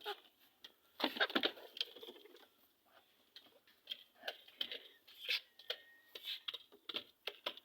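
Chickens pecking and scratching in their coop: quick, irregular taps and clicks, with a denser flurry about a second in.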